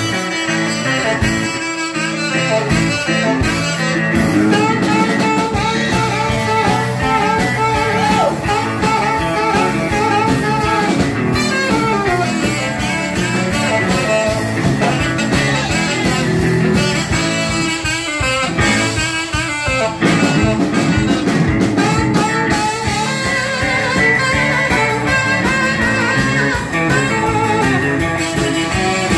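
Live blues-rock band music: a saxophone plays a melodic solo over drums and electric guitar.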